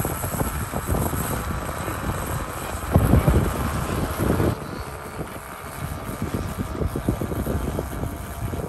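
Engines of a radio-controlled DC-3 scale model running as it taxis, a steady propeller drone with gusty wind buffeting the microphone, strongest a few seconds in.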